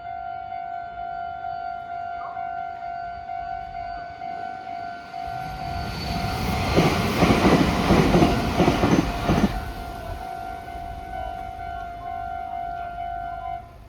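Japanese railway level-crossing alarm ringing its repeating electronic "kan-kan" bell as a Meitetsu Nagoya Main Line train passes. The train's rumble and wheel clatter build about five seconds in and are loudest for about three seconds before fading. The alarm stops just before the end.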